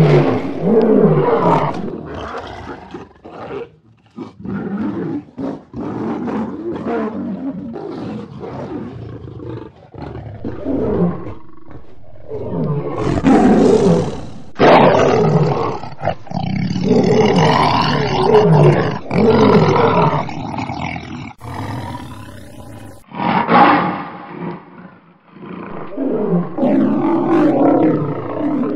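Lions roaring, one call after another, rising and falling in loudness, with several sudden loud roars breaking in.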